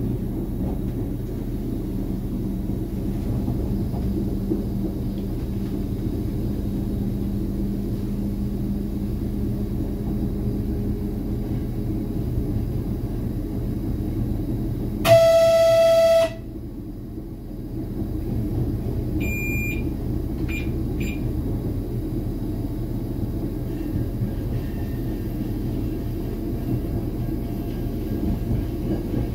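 Steady low rumble of an RA2 diesel railcar under way, heard from its cab. About halfway through it is broken by one loud horn blast of just over a second, a single steady note that cuts off suddenly. A few short high beeps follow a few seconds later.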